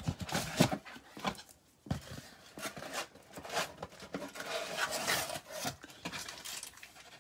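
Cardboard trading-card box being handled and opened, with the foil wrappers of the card packs inside crinkling and rustling as they are pulled out. Irregular taps and clicks of the box against the table come between the rustles.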